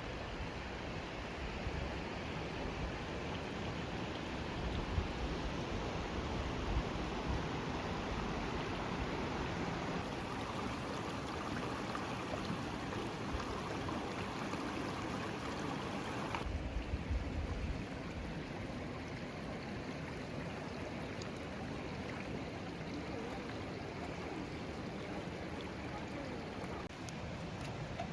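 Mountain valley stream flowing, a steady rush of water, with abrupt shifts in its tone about ten and sixteen seconds in.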